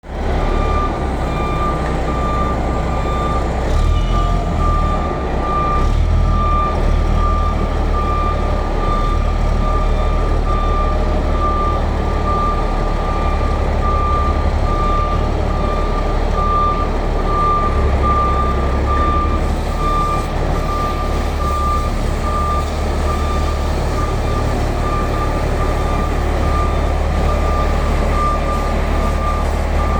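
Shantui SD32 crawler bulldozer's diesel engine running with a steady low rumble, while its reversing alarm beeps evenly about once a second, the sign that the dozer is backing up.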